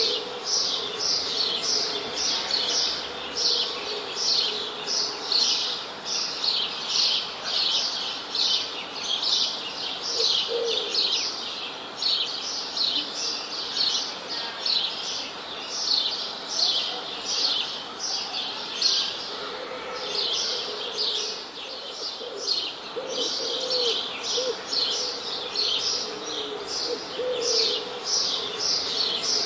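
Birds chirping: a continuous run of short, high chirps, each falling in pitch, repeated two or three times a second, with fainter lower calls now and then.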